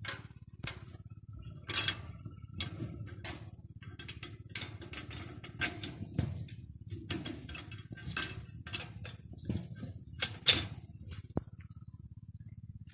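A rusty rebar-and-wire gate being unlatched and worked open by hand: a long run of irregular metal clinks, knocks and rattles.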